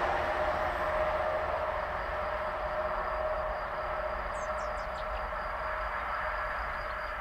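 SBB IC 2000 double-deck push-pull train with its Re 460 electric locomotive at the rear, moving away after passing: a rolling rumble and a steady hum fade slowly into the distance. A few short bird chirps come about four and a half seconds in.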